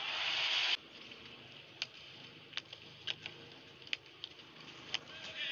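Badminton rally: scattered sharp racket strikes on the shuttlecock and brief high squeaks of court shoes on the floor, a few each second. It opens with a loud burst of hiss-like noise that cuts off suddenly under a second in.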